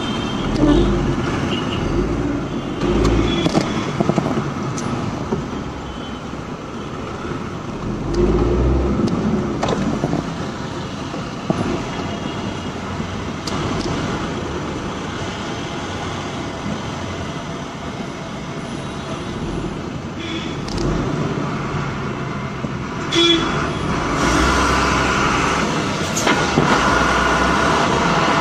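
Road traffic heard from inside a car in slow town traffic behind a bus: steady engine and road noise with the rumble of nearby heavy vehicles.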